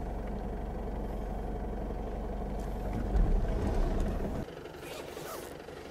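Pickup truck engine running steadily, heard from inside the cab, with a low thump just after three seconds in; about four and a half seconds in the engine hum stops abruptly.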